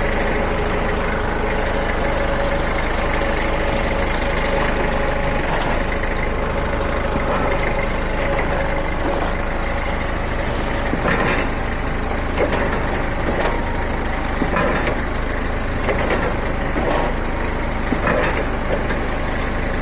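Komatsu forklift engine running steadily at idle, started up to test the machine after a hydraulic lift cylinder rebuild. A few light clicks or knocks come through in the second half.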